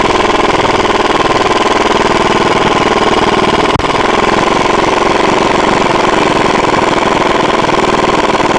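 Air impact wrench hammering continuously on the forcing screw of a jaw-type bearing puller, a loud, rapid, steady rattle, as it draws a ball bearing off the shaft of an electric pump motor.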